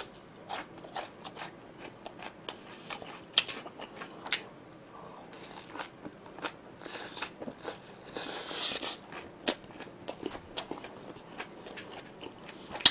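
A man eating spicy noodles close to the microphone: wet chewing with many small smacking clicks, and several hissing slurps of noodles a little past the middle.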